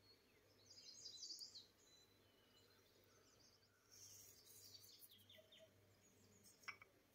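Near silence: faint room tone with a steady low hum. Two faint stretches of short high chirps come about a second in and again about four seconds in.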